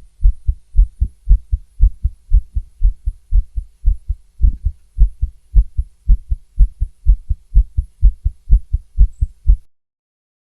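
A woman's fast heartbeat heard through a stethoscope: quick, even lub-dub pairs of low thumps. It cuts off suddenly near the end.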